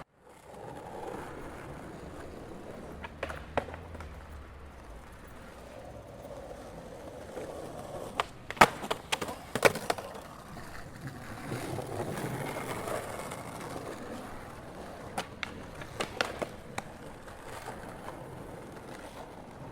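City street ambience: a steady background of distant traffic and street noise, broken by scattered sharp clacks and knocks, the loudest in a cluster about nine seconds in and another a few seconds before the end.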